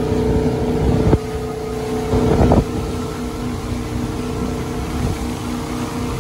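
Wake boat's engine running at a steady drone under the rushing of its churning wake and wind on the microphone, with two brief knocks about one and two and a half seconds in.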